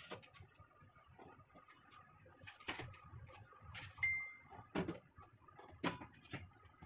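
Stainless steel steamer pot clinking and knocking, about half a dozen metal knocks with a short ring, as a foil-covered flan mold is set into the steamer tray and the tier is handled. A short high beep about four seconds in.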